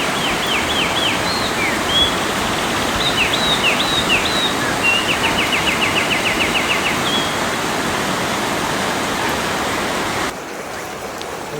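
Steady rush of flowing water with a bird calling over it: short sweeping calls near the start and again a few seconds in, then a fast even trill of about a dozen notes. Near the end the water sound drops abruptly to a quieter background.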